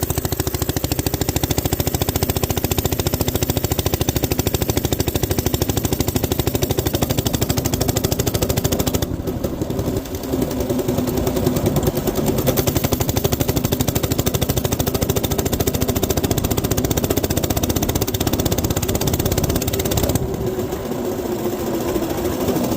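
Coleman B200R minibike's small single-cylinder engine running steadily under way, with the throttle easing briefly twice. It keeps pulling without cutting out on the replacement carburetor.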